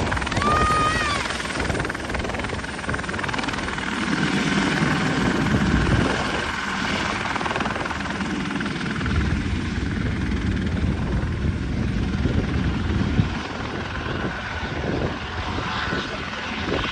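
Airbus EC120B Colibri helicopter with its single Turbomeca Arrius 2F turboshaft, lifting off and flying away: rotor noise with a steady turbine whine, growing somewhat fainter in the second half as it departs.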